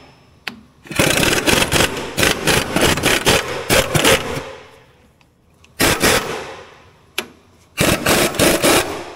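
Air impact wrench hammering on a stubborn bolt in a crawler dozer's undercarriage, in three bursts: a long run of about three seconds, a short burst about six seconds in, and about a second more near the end.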